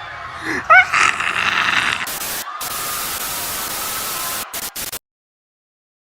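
A short rising cry, then loud radio static with a few brief dropouts that cuts off abruptly to dead silence about five seconds in: the broadcast signal going off the air.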